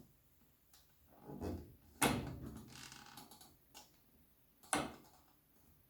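Candy washing machine's programme selector knob being turned, clicking and clunking: a soft knock about a second in, a loud clack about two seconds in with a rattle after it, and a sharp click near the end. The owner says the selector is acting up.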